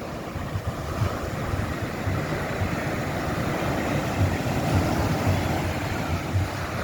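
Ocean surf breaking along an open beach, a steady wash of noise, with gusty wind rumbling on the microphone.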